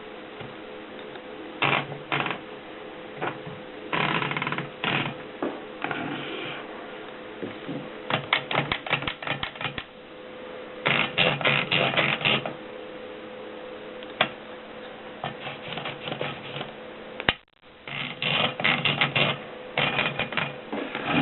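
A 1930s Mercedes Prima typewriter being typed on: runs of rapid key strikes in bursts of a second or two, with short pauses between them.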